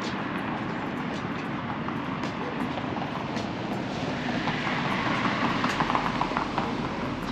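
Streetcar rolling past on its rails over steady street traffic, growing louder in the second half.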